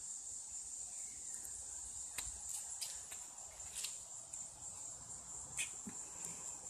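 Crickets chirping steadily in a high, even band, with a few short faint clicks and rustles over it.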